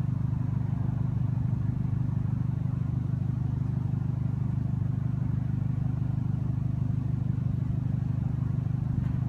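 Audi A4 1.8-litre turbocharged four-cylinder with a K04 turbo, idling steadily with an even, rapid exhaust pulse and no revving.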